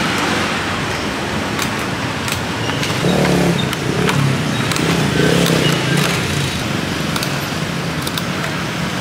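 Street traffic noise, with a motor vehicle's engine running close by through the middle. Several short, sharp clicks of clear plastic clamshell food boxes being snapped shut are heard over it.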